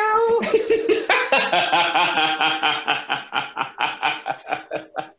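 A man laughing hard: a long run of quick bursts of laughter, about four or five a second, that space out and fade near the end.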